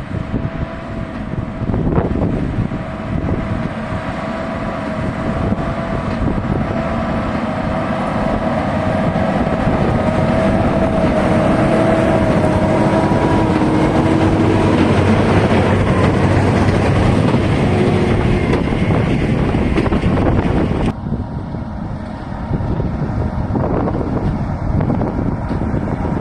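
A Case tractor of about 240 horsepower pulling a New Holland 1290 Plus big baler, engine and baler running steadily under load while baling straw. It grows louder over the first twenty seconds, then drops off suddenly a little over twenty seconds in, with some wind on the microphone.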